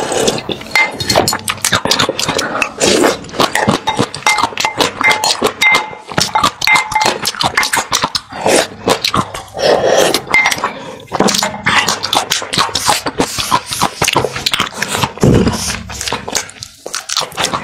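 Close-miked eating: slurping from a ceramic bowl, then a wooden spoon scooping and scraping in it, with a rapid run of wet chewing and mouth clicks throughout.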